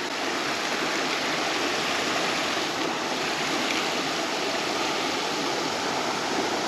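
Steady rush of running creek water, an even hiss with no breaks.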